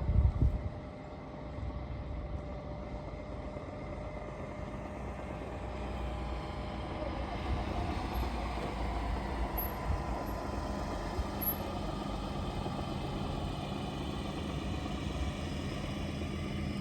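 Car engine and road noise while driving, a steady low rumble, with a brief loud knock right at the start.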